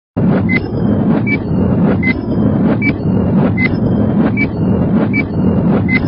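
Countdown intro sound effect: a short high beep with a tick about every three-quarters of a second, over a loud, steady, deep noise.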